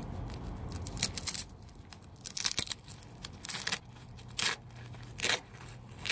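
Tough Velcro closure on a survival cache belt being pulled apart in a series of short rips, roughly one a second.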